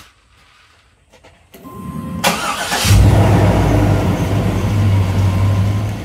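Chevrolet engine cranked by the starter for about a second and a half, catching about three seconds in and settling into a steady idle.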